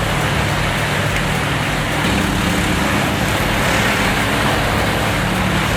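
A large wood chipper running steadily under load: a constant engine drone under a loud, even rushing noise with no break.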